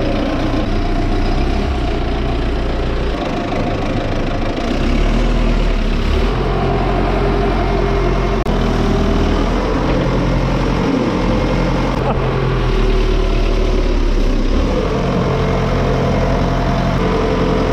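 Belarus MTZ 892 tractor's four-cylinder diesel engine running, its speed stepping up and down several times as the tractor is driven to test the freshly repaired brakes.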